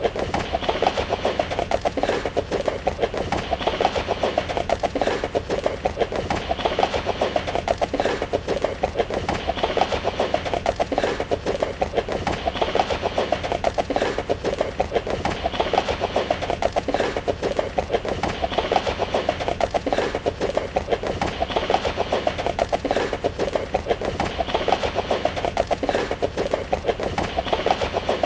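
Horse hooves galloping in a fast, steady drumming rhythm of hoofbeats that keeps going without a break.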